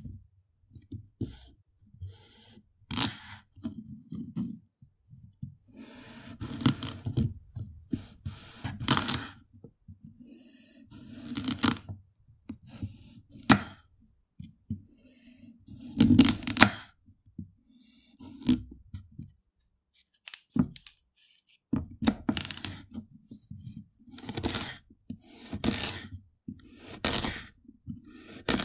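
Raw carrot being cut with a knife: crisp cracking cuts, each snap of the carrot with a low knock beneath it, coming in irregular runs with short pauses between.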